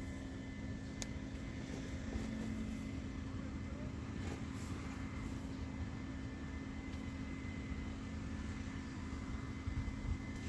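A steady machine hum with a low droning tone and a faint high whine, unchanged throughout, with a single sharp click about a second in.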